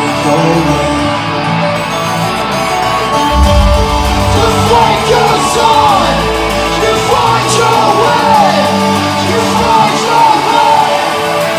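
Electronic dance track with a singing voice over deep held bass notes that change every second or two.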